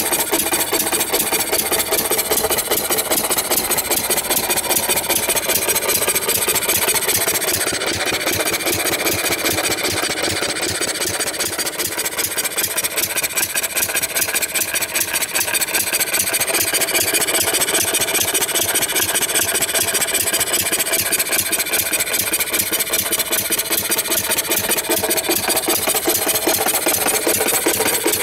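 Quarter-scale model of the 1895 Mery explosive engine, a single-cylinder horizontal gas engine, running steadily with a rapid, even clatter of firing strokes, a little quieter for a few seconds about halfway through.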